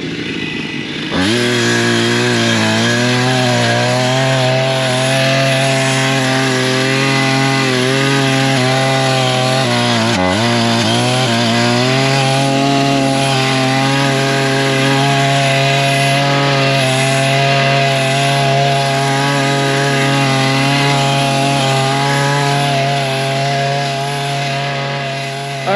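Two-stroke chainsaw engine driving a wheeled brush cutter, revving up about a second in and running at high revs while its chain cuts through dry grass and brush. The revs dip briefly near the ten-second mark, then hold steady.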